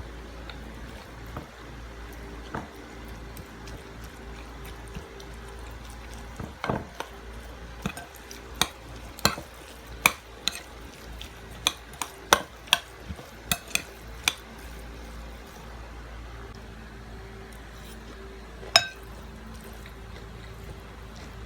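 A spoon clinking against a dish about a dozen times in a few seconds, then once more near the end, over a steady low hum.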